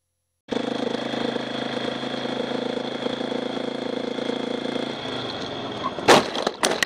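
Motorcycle engine running steadily, starting about half a second in, its note dropping away near five seconds. About a second later come several loud bangs as the bike goes down in a crash.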